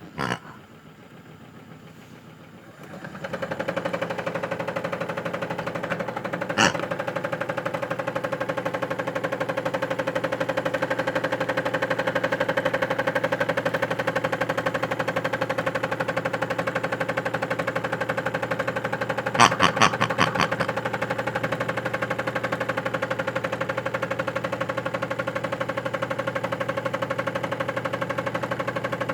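Small electric motor of a toy washing machine switching on about three seconds in and running steadily with a fast, even rattle. A click comes just before it starts, another a few seconds later, and a short run of clicks about twenty seconds in.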